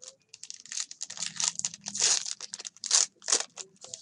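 Plastic card-pack wrapping being torn open and crinkled by hand, in a run of irregular rustles and crackles that are loudest about two and three seconds in.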